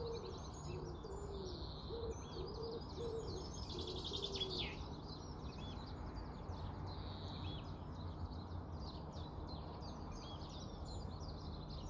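Several small songbirds chirping and trilling throughout, with a pigeon's low repeated coos during the first couple of seconds, over a steady low background rumble.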